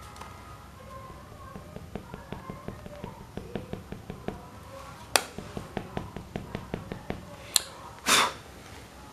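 Coloured pencil tapping and stroking on paper in quick short strokes, a run of light ticks about four a second. A few sharper clicks come in between, and a brief louder scrape sounds near the end.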